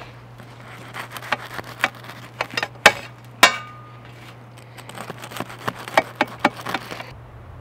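Knife sawing through the hard crust of a freshly baked Dutch-oven loaf: a run of crisp crackling crunches, with two louder knocks about three seconds in, the second leaving a short metallic ring as a slice drops onto the metal baking tray.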